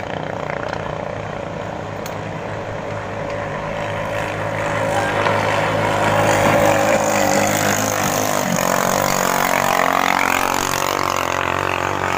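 Ketinting longtail racing boats' small Chinese-made engines running hard, getting louder about five seconds in, with the engine pitch sweeping upward near the end.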